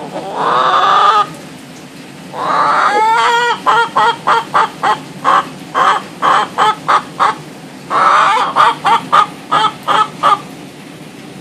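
Domestic hen calling loudly: two long drawn-out squawks, then a quick run of short clucks at about three a second, then another long squawk followed by more rapid clucks.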